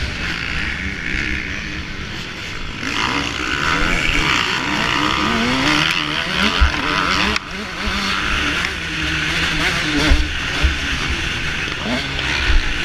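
Motocross bike engine revving up and falling back repeatedly through the gears at race speed, heard close up with wind noise over a helmet camera. Low thumps come a few times near the end.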